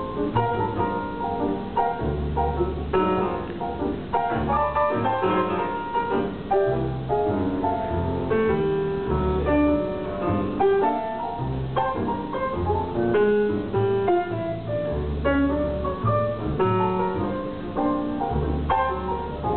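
Grand piano and upright double bass playing together live, with long low bass notes under a steady run of piano notes.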